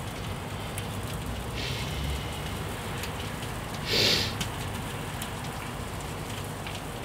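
Food sizzling on a Landmann gas grill with the lid closed: a steady crackling hiss with faint pops, with a short louder hiss about four seconds in.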